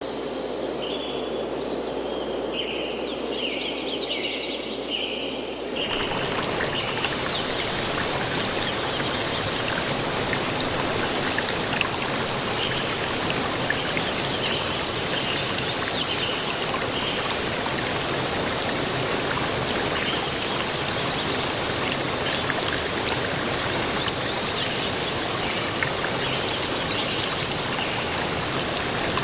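Steady rushing-water noise, like rain or a stream, with birds chirping over it for the first six seconds. About six seconds in the noise suddenly becomes louder and fuller, and it then runs on evenly.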